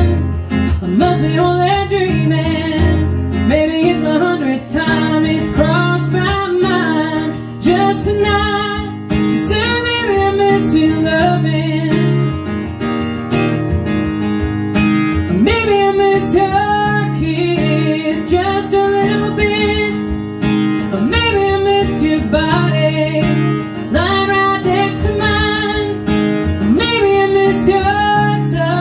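A woman singing a country song, accompanying herself on a strummed acoustic guitar.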